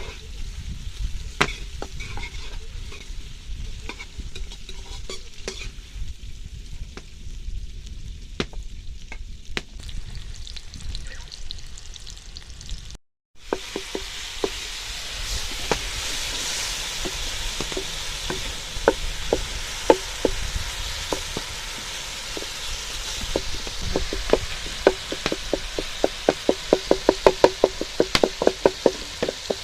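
Chopped onions frying in hot oil, sizzling, while a spoon stirs and scrapes against the pot; this is the stage of frying the onions until golden brown. After a short break about thirteen seconds in, the sizzle is louder, and near the end the spoon scrapes in quick strokes, several a second.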